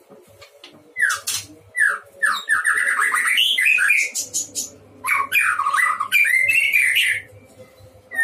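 White-rumped shama (murai batu) singing in loud bursts of rapid, varied phrases: sweeping whistled notes mixed with harsh, rasping chatter. The song starts about a second in, breaks off for about a second at the halfway point, and picks up again near the end.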